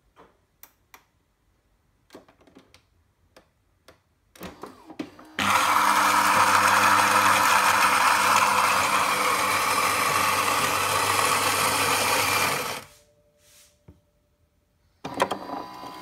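The Philips HD8844 super-automatic espresso machine's built-in ceramic grinder grinding coffee beans for about seven seconds: a loud, steady grinding whir over a motor hum that stops abruptly. A few light clicks from the control panel come before it, and a quieter machine noise starts near the end.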